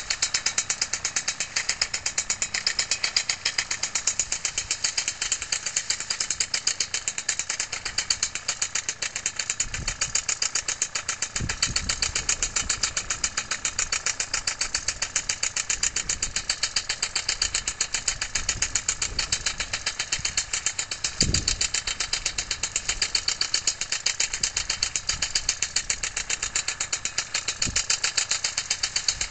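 Paramotor's small two-stroke engine idling steadily, a fast, even pulsing buzz.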